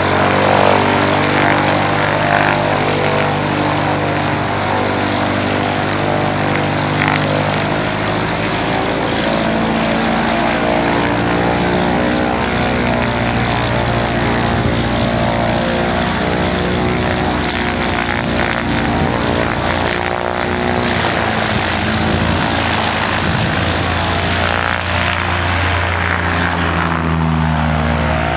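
Light propeller airplane's piston engine running steadily at low power, its note shifting up and down a few times as the engine speed changes.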